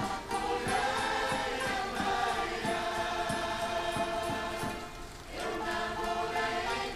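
Background music with a choir singing held notes, the sound dipping briefly about five seconds in.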